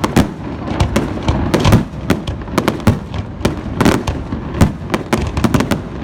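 Fireworks display: a rapid, irregular barrage of booms and crackling bangs, several a second, over a continuous rumble.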